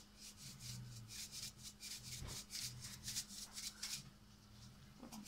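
Salt grinder being twisted over a mixing bowl: a quick run of rasping grinds, about five a second, with a short pause near the end.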